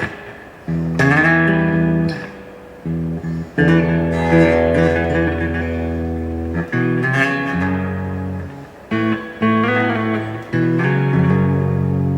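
Gibson Les Paul electric guitar played through an Electro-Harmonix Oceans 11 reverb pedal and a Blues Cube amp: a run of struck chords and notes, each left to ring out, changing every second or two with short breaks between them.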